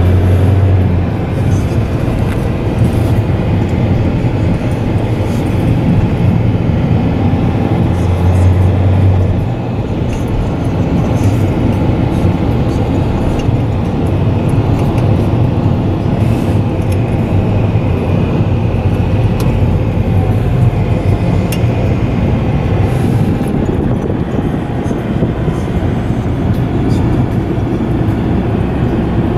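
Car interior noise while driving: a steady rumble of engine and tyres on the road. A low hum swells at the start and again about eight seconds in.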